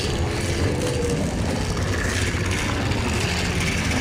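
Film soundtrack ambience: a steady, dense low rumble with no speech, from the dark cave scene with the giant toad.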